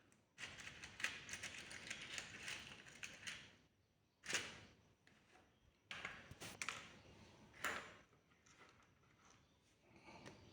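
Irregular clicks and rustling, with a sharp click about four seconds in and a cluster of clicks around six to eight seconds.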